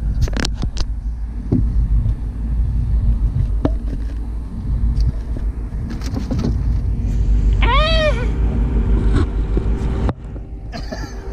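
Steady low rumble of wind and water on a small open boat, with a few sharp clicks and knocks of handling as a fish is unhooked. About eight seconds in, one short call rises and falls in pitch.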